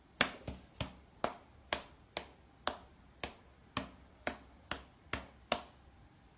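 A series of about a dozen sharp clicks or taps, roughly two a second, stopping about a second before the end.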